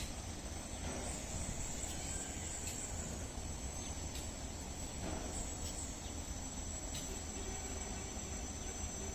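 Insects chirring in a steady, high-pitched drone over a low, steady rumble, with a few faint ticks.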